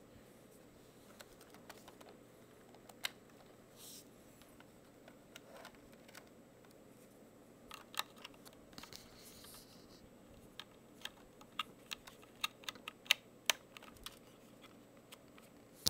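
Light plastic clicks and taps of hands handling Lego parts close to the microphone. They are scattered at first, then come two or three a second near the end.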